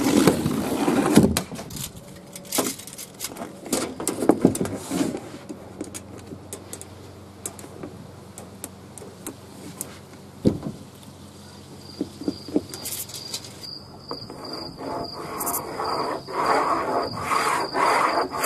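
Scattered clicks and knocks of a tape measure and pencil being handled on a sheet of MDF, with one sharp knock about halfway through. In the last few seconds a steady high pulsing tone comes in.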